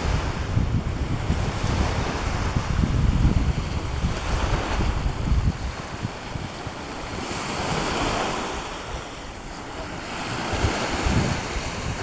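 Wind buffeting the phone's microphone, easing about halfway through, with small waves breaking and washing up on a sand beach; the wash swells twice near the end.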